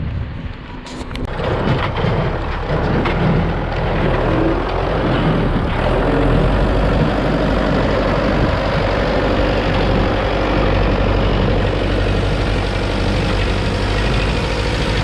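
Heavy vehicle engine running hard, swelling over the first couple of seconds and then holding a steady, loud drone.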